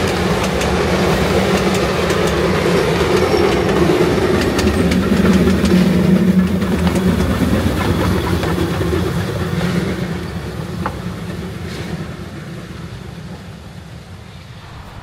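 Puffing Billy narrow-gauge steam train working hard up the grade into Cockatoo, loudest as it passes about five to seven seconds in, then fading away into the distance.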